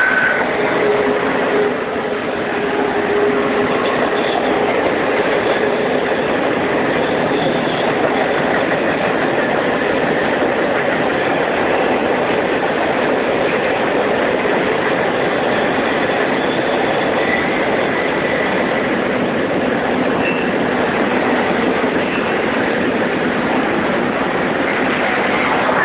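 Intermodal freight cars, double-stack container cars and trailer flatcars, rolling steadily past on a curve: a continuous rumble and rattle of wheels on rail. Brief thin squeals from the wheels on the curve come and go, in the first few seconds and again about two-thirds of the way through.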